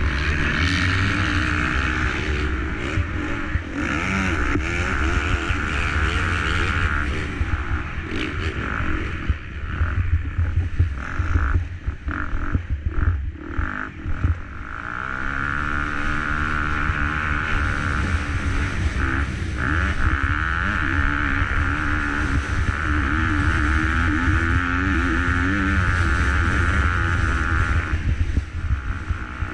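KTM SX-F 250 motocross bike's four-stroke single-cylinder engine racing hard. Its revs rise and fall, the throttle is chopped several times near the middle, and then it pulls up through the revs again.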